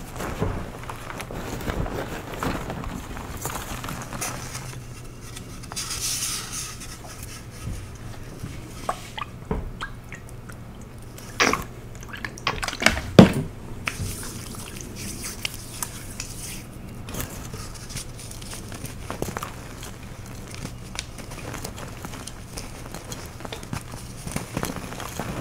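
Hands crumbling and crushing soft blue powder blocks in a bowl of loose powder: soft crunching and sifting throughout, with a few sharper snaps a little before and after halfway.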